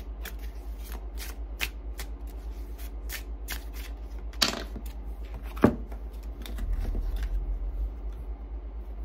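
A tarot deck shuffled by hand, the cards slipping and flicking against each other in a run of short clicks, with two sharper snaps about four and a half and five and a half seconds in.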